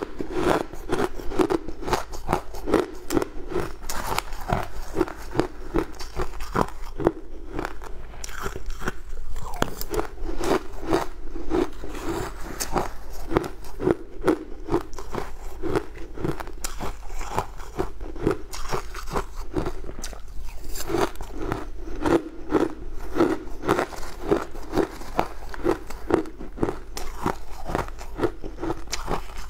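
Close-up crunching and chewing of a mouthful of crushed frozen ice, a steady run of crisp crunches about twice a second as the ice is bitten and ground between the teeth.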